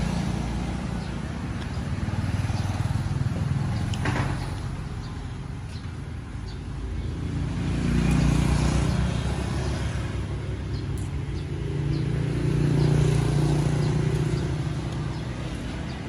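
Road traffic: vehicles passing, their low engine and tyre rumble swelling and fading three times.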